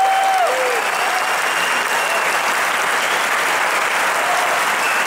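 Audience applauding steadily at the end of a performance, with a few voices calling out in the first second.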